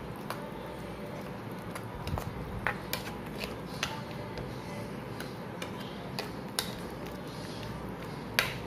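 A spatula stirring vegetables through thick sauce in a nonstick kadai, knocking and scraping against the pan in irregular sharp clicks, the loudest near the end, over a steady low hiss.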